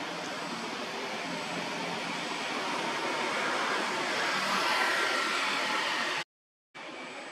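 Steady rushing outdoor background noise that swells to its loudest about five seconds in, then cuts out abruptly for half a second and comes back quieter.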